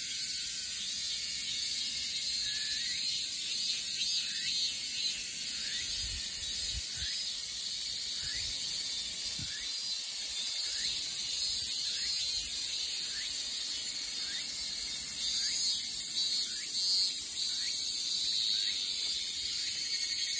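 Dense, high-pitched buzzing of insects in the forest trees, swelling and pulsing in loudness. Through the first half a short rising chirp repeats a little more than once a second.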